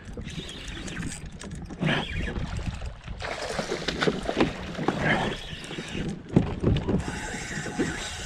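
Water splashing and sloshing around a kayak as a big snook thrashes at the surface on a topwater lure. About seven seconds in, a steady whir starts: the reel's drag beginning to pay out line to the hooked fish.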